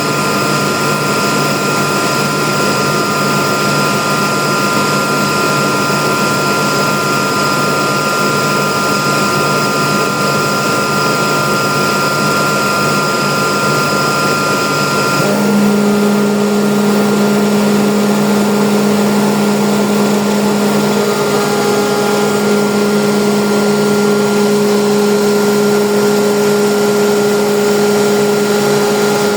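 Airhorse AHB20A air compressor running with a steady machine hum. About halfway through, its tone changes: the higher whine falls away and a lower, stronger hum carries on steadily.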